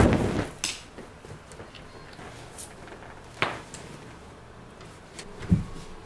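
Curtain fabric dropping onto a wooden floor with a short, soft whoosh and thump, followed by a few scattered light clicks and knocks and a low thump near the end.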